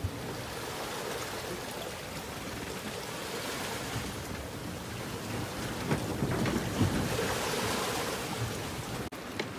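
Wind and sea rushing past a sailboat under way: a steady, noisy wash of water and wind, a little louder between about six and eight seconds in.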